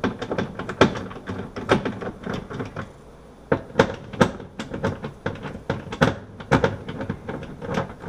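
Screwdriver working the screws that hold a dishwasher sump in the plastic tub floor: a run of sharp, irregular clicks and knocks, a few a second, with a short pause about three seconds in.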